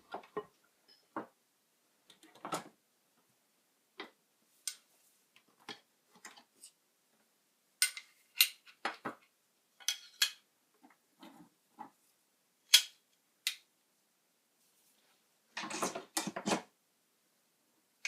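Hard objects being handled: scattered sharp clicks, knocks and clinks, a few of them loud, with a short rattling clatter about sixteen seconds in.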